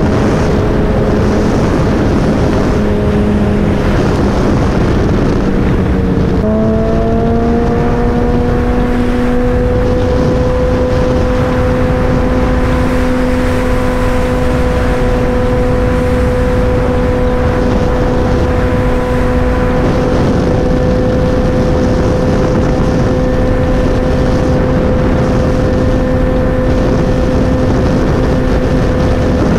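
Suzuki Hayabusa's inline-four engine running under way, heard over heavy wind rush on the microphone. About six seconds in, the engine note jumps up sharply, then holds at a steady pitch.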